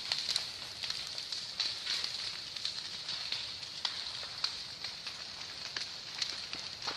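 Burning vegetation crackling, with irregular sharp snaps over a steady high hiss.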